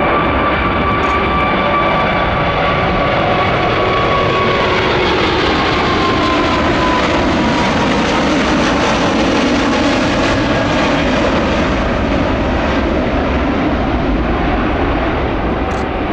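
Airbus A380-842 with four Rolls-Royce Trent 972 engines at takeoff power, climbing out past: a loud, steady jet engine noise with a whining tone that drops in pitch as it goes by. The noise eases slightly near the end as the aircraft moves away.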